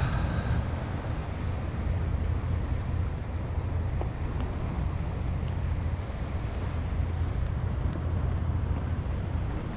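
Steady wind noise on the microphone, with the sea washing against shore rocks beneath it.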